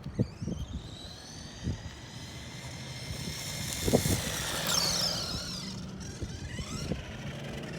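Electric motor of a WLtoys A979 1/18 RC monster truck whining at full throttle on a top-speed run. The pitch rises as it speeds up and drops steeply as it passes, about five seconds in, then fades. There are a few light knocks.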